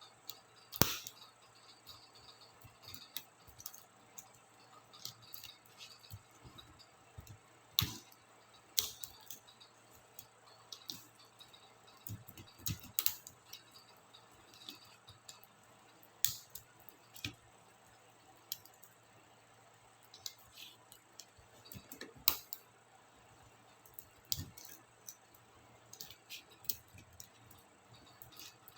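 Irregular small plastic clicks and rattles from laptop keycaps and their scissor mechanisms being worked apart and handled. A few sharper snaps stand out among the lighter clicks.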